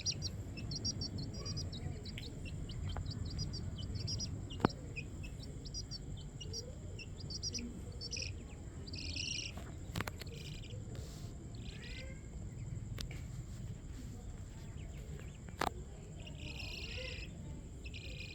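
Small birds chirping in quick, high trills, repeated on and off over a steady low rumble of outdoor ambience and a thin, steady high tone. A sharp click sounds about four and a half seconds in, and another near the end.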